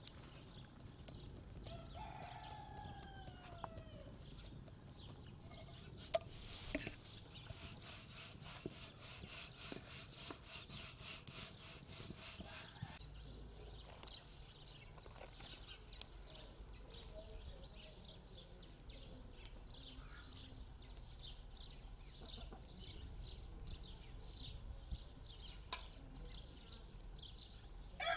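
A rooster crows faintly once, about two seconds in, with a falling call, over quiet farmyard ambience with rapid faint ticking in the middle.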